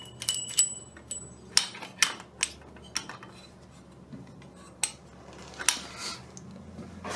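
Irregular sharp metallic clicks and clinks of a screwdriver and the Harley-Davidson pushrod covers being pried off and handled. A couple of the clinks ring briefly, about a second in.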